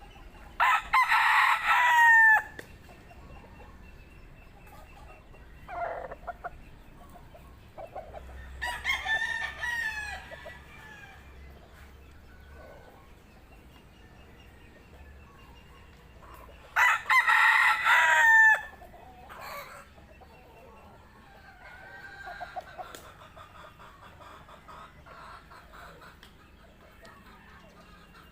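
A rooster crowing: two loud crows, each about a second and a half long, one near the start and one about two-thirds of the way through, and a fainter crow around nine seconds in, with a few short clucks between.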